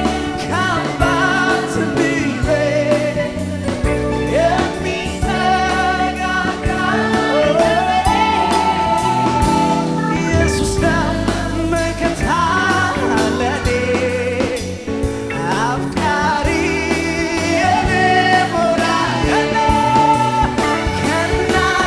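Live Amharic gospel worship song: a choir and solo voices singing over a band with a steady drum beat.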